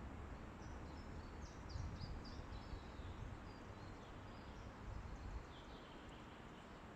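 A small songbird sings a quick string of short, high chirping notes, then a shorter, slightly lower phrase a few seconds later. Wind rushes steadily underneath.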